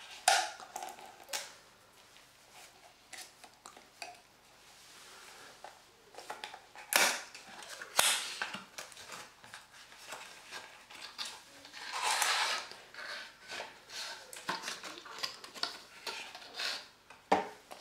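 Apple card-stock retail box being opened by hand: a seal tab peeled, the end flap pulled open and the inner cardboard tray slid out, in scattered rustles, scrapes and sharp clicks. The loudest clicks come about 7 and 8 seconds in, with a longer rustle around 12 seconds.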